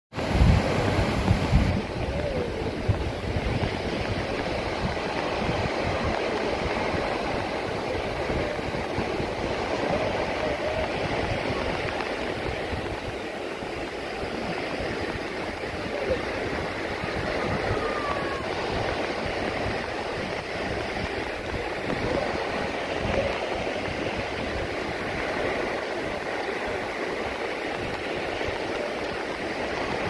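Small sea waves breaking and washing up on a beach: a steady surf noise that swells and eases gently. There are a few low thumps in the first two seconds.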